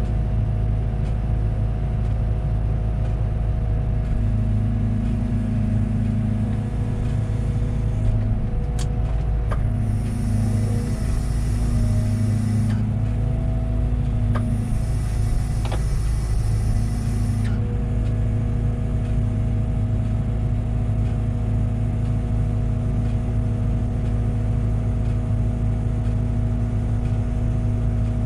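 Liebherr 914 Compact wheeled excavator running steadily at work, its engine drone shifting slightly in pitch as the hydraulics take load. Two spells of high hiss a few seconds long come near the middle, with a few sharp clicks.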